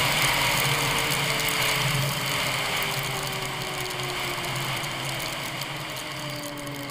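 Turbocharged snowmobile engine winding down as the sled slows after a high-speed run, its note falling gently in pitch and fading, under a steady rush of wind on the microphone.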